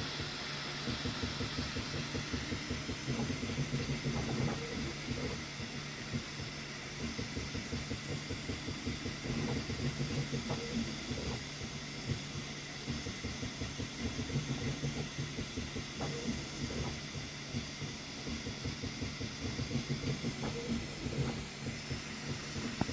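3D printer running a print: its motors buzz in quick, uneven pulses over a steady fan hiss.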